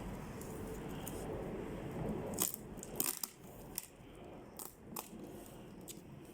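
Handling noise from unboxing: a low rustle and shuffle, then from about two and a half seconds in, a series of sharp clicks and taps as plastic parts and packaging are handled.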